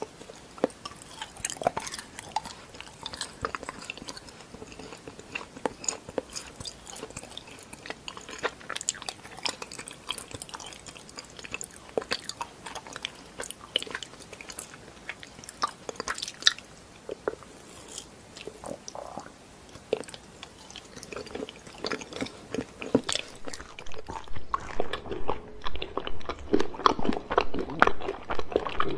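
Hard chocolate being bitten and chewed: irregular sharp snaps and crunches as pieces of a moulded chocolate handbag break off. About 24 s in, denser, duller chewing of small chocolates takes over.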